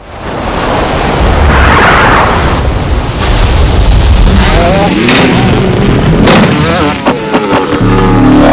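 Loud motorsport audio: engines running and sweeping past, with rising and falling pitch over a deep rumble, starting abruptly.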